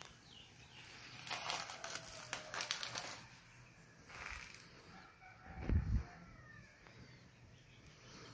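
Chickens: a burst of wing flapping lasting about two seconds, then faint clucking, with a dull low thump about two-thirds of the way through.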